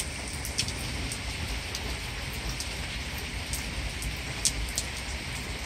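Steady heavy rain from a supercell thunderstorm, an even hiss with scattered sharp close drop taps.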